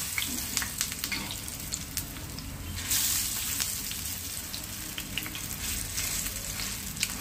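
Potato-and-egg bhaji patties sizzling in shallow oil in a black pan, with a steel spatula scraping and clicking against the pan as they are flipped. The sizzle swells louder about three seconds in.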